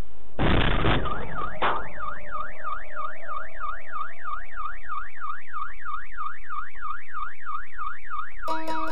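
A short burst of noise and a brief second knock, then a car alarm siren goes off and keeps going: a fast up-and-down warble, about three sweeps a second.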